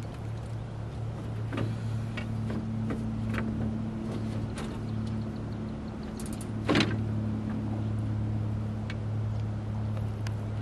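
Steady drone of an unseen engine running at a constant speed, with scattered light clicks and one louder knock about two-thirds of the way in.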